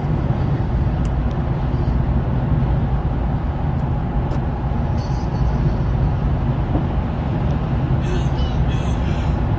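Steady low road and engine noise of a car cruising at freeway speed, heard from inside the cabin.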